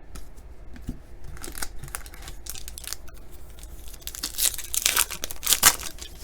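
Foil wrapper of a baseball card pack being torn open and crinkled, the loudest rips coming in the second half.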